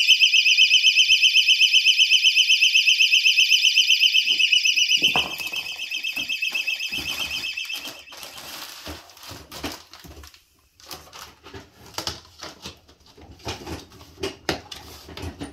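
Personal alarm shrieking with a fast-warbling, high-pitched tone. About five seconds in it drops sharply and turns muffled as it is buried in a bucket of dense-fill cellulose insulation. It fades to a faint sound by about eight seconds, under rustling and knocks from the plastic bag of insulation being handled on top.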